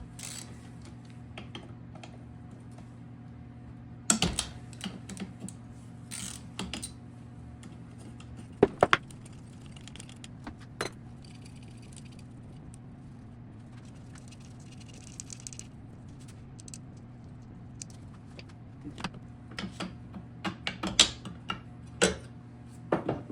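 Metal tools and small bike parts clinking and clanking as a small dirt bike is taken apart, in irregular bursts with a few sharper knocks, over a steady low hum.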